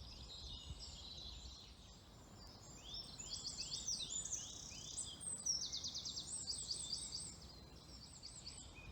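Several songbirds singing together in a spring dawn-chorus fashion, overlapping phrases of quick, high repeated notes, busiest through the middle of the stretch.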